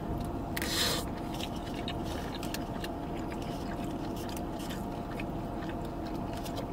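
A person chewing a mouthful of rice-bowl food, with small wet mouth clicks throughout. A brief scrape comes just under a second in, with a steady low hum underneath.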